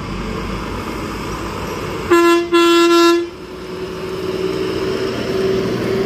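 Bus horn sounding twice, a short toot then a longer blast about two seconds in, over the engine and road noise of a bus that grows louder as it approaches and passes close.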